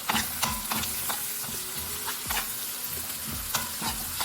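Pepper sauce frying in oil in a pan, sizzling steadily, with a spoon stirring it and scraping or knocking against the pan at irregular moments.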